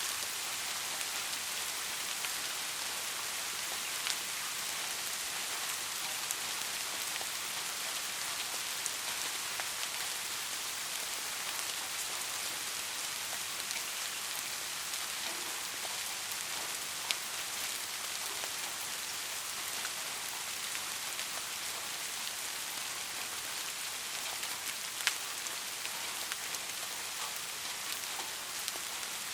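Steady rain falling, an even hiss with scattered sharper drop impacts, a few louder drops standing out.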